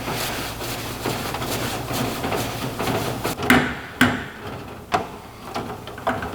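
Clay bar rubbing across the painted sheet metal of a toolbox with a steady scrubbing sound. From about halfway through, the rubbing gives way to a few sharp knocks and clunks.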